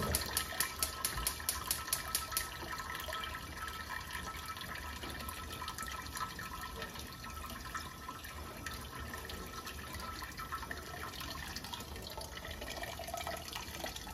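Wort running and dripping from a lifted brew-in-a-bag grain bag, through a mesh strainer, back into the brewing kettle at the end of the mash. Quick, regular ticks sound for the first two seconds or so, then a steady trickle.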